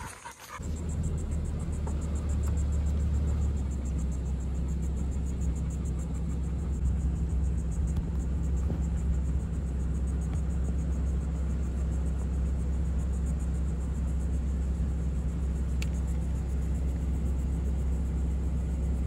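A motor vehicle's engine running at a steady speed, a constant low hum that starts abruptly about half a second in.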